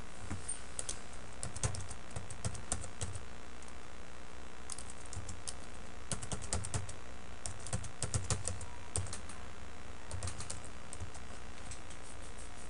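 Typing on a computer keyboard in several short bursts of keystrokes with pauses between them.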